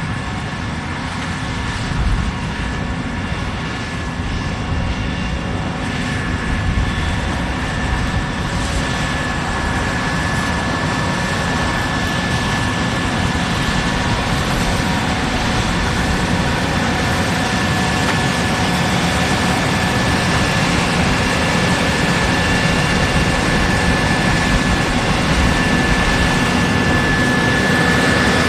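Case IH 6140 combine harvester running: a steady engine and machinery drone with a high whine over it, growing gradually louder.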